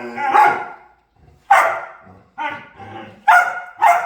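A dog barking in a string of short pitched barks, about five in all, each starting sharply and trailing off.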